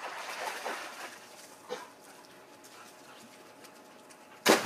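A dog whining and panting, with a short yelp partway through, then a sudden loud splash near the end as a person jumps into a swimming pool.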